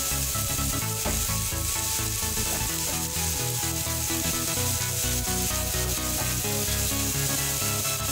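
Long beans, tomato and chili stir-frying in oil in a frying pan, sizzling steadily as a spatula stirs them, over background music.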